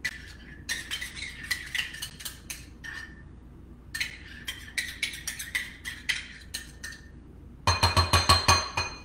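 A metal spoon scraping and clicking against a metal measuring cup as thick canned pumpkin is scooped out into a glass bowl, in irregular bursts of small clinks. Near the end comes a quick run of about eight loud, ringing metal taps, as the cup and spoon are knocked against the bowl to shake off the last of the pumpkin.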